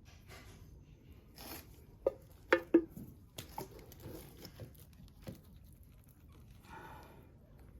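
A few sharp knocks and clacks, the loudest three close together between two and three seconds in, among quieter clicks and scraping from tools and materials being handled. A short rustle comes near the end.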